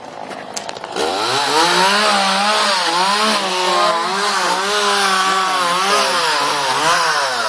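Chainsaw revving up about a second in and running at high speed, its pitch wavering up and down as it cuts into a rotten mulberry trunk, then dropping back near the end.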